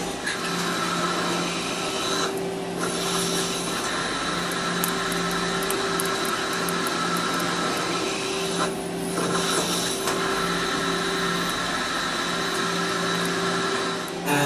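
A machine running steadily: a low hum with a higher whine and a hiss over it. The hiss drops out briefly twice, about two seconds in and again near nine seconds.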